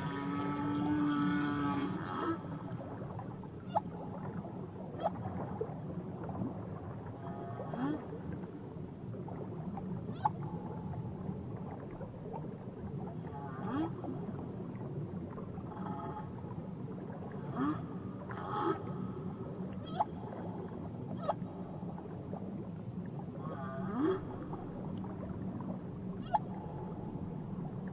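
Whale song. A long call with several overtones opens it, followed by short rising whoops and sharp clicks every second or two over a steady low background.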